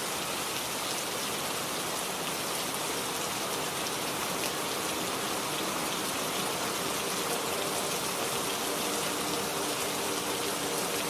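Steady rain sound, an even hiss of falling rain, with faint held low tones coming in about halfway through.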